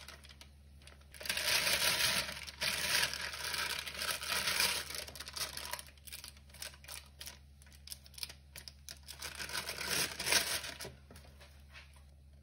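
Disposable plastic piping bag crinkling and rustling as a plastic coupler and metal tip are pushed into it, with a run of small plastic clicks in the second half as the coupler ring is screwed on.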